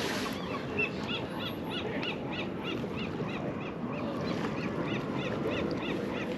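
A bird calling over and over in short, arched notes, about two or three a second, over a steady low background rush.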